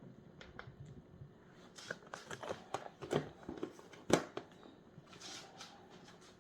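A run of small clicks and rustles of things being handled, with one sharper knock about four seconds in and softer rustling after it.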